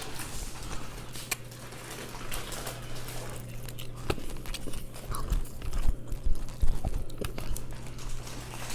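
A person eating a mukbang of mussels and chicken close to the microphone: chewing, with scattered light clicks and a few soft low knocks around the middle. A steady low hum sits underneath.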